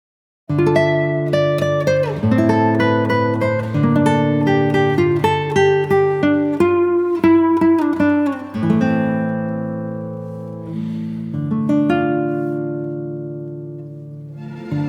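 Background music on acoustic guitar: picked notes and chords, starting after a brief silence. A chord rings out and slowly fades through the second half, and new playing comes in just before the end.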